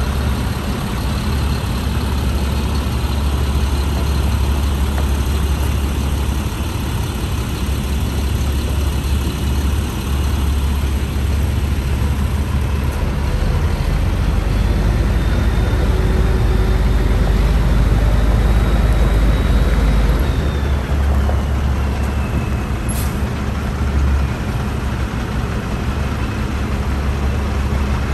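International 4900 dump truck's DT530 inline-six diesel running at idle, a steady low rumble that gets deeper and a little louder for several seconds around the middle. One short sharp click late on.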